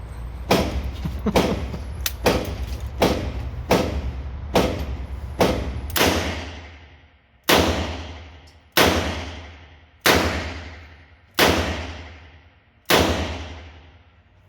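A string of handgun shots echoing in an indoor range: about nine shots in quick succession, less than a second apart, then five louder ones about 1.3 s apart, each ringing out and fading before the next.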